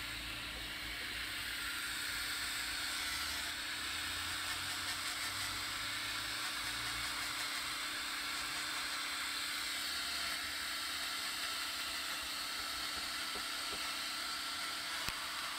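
Electric angle grinder running at a steady speed, its disc grinding into a block of wood to rough-shape a carving; a steady hiss that does not let up.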